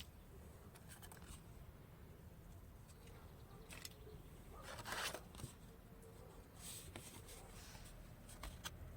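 Faint handling noises: light rustling and scattered small clicks, with a short, louder rustle about five seconds in.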